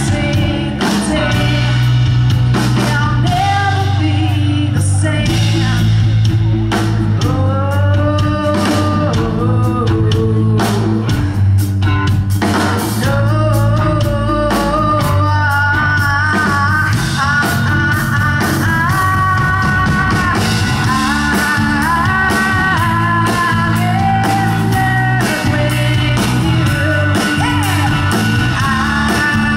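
Live rock band playing: a woman sings the lead melody over electric bass, electric guitar and a drum kit.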